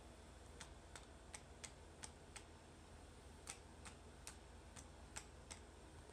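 Faint, sharp plastic clicks, about a dozen at uneven spacing, from a hand-held plastic toy as a cat paws at it, over a low steady hum.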